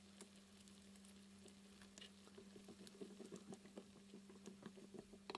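Vegetable curry in a frying pan, stirred with a silicone whisk: faint soft patter and small clicks that grow busier about halfway through, over a low steady hum.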